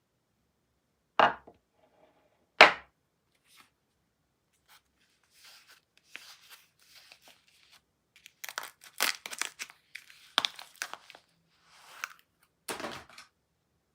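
Soap packaging being unwrapped by hand: two sharp knocks about a second apart, then a long stretch of wrapping rustling, crinkling and tearing, and one more knock near the end.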